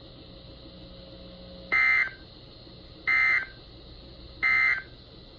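Emergency Alert System end-of-message signal: three short, identical bursts of SAME digital data tones, a little over a second apart, marking the end of the alert.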